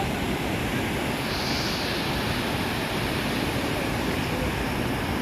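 Waterfall water rushing with a steady roar, a dense even noise with no breaks.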